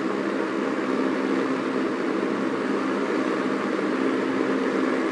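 Early-1970s Arctic Aire model 200 box fan with a Fasco motor running on low speed: an even rush of air with a steady hum beneath it.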